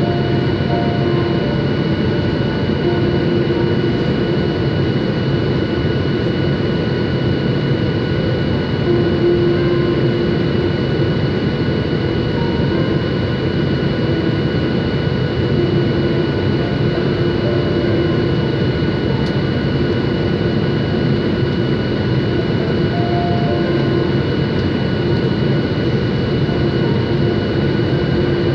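Boeing 737-800's CFM56-7B engines and airflow heard from inside the passenger cabin on approach: a steady roar with a thin, steady whine on top.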